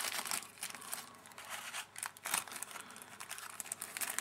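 Small clear plastic bag crinkling as fingers open it: irregular rustles and crackles, with a sharper crackle a little after two seconds in.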